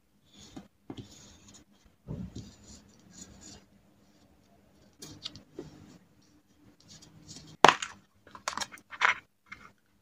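Close-up paper and sticker handling: soft rubbing, rustling and light taps as stickers are pressed down and placed with tweezers. Near the end comes a sharp plastic click, the loudest sound, followed by a few rattling rustles as a clear plastic sticker box is handled.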